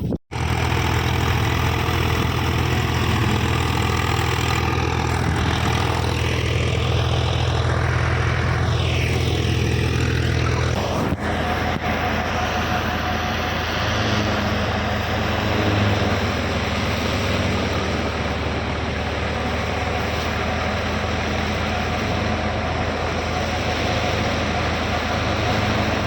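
Tractor running a wheat thresher, a steady loud mechanical drone with an engine hum underneath and a dense rushing noise above. About eleven seconds in the sound shifts and the deep engine tones weaken.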